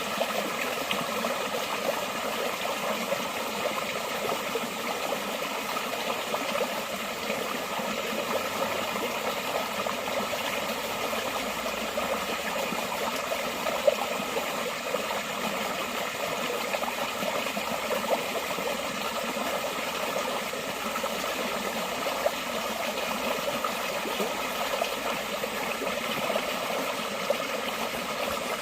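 Forest stream flowing steadily, a continuous babble of running water with a few small splashes standing out.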